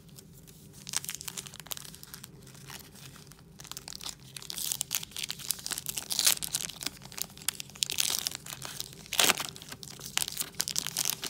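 Foil trading card pack crinkling and tearing as hands pull it open, a struggle to get it open. The crackling starts about a second in, gets louder from about four seconds, with a sharp rip near nine seconds.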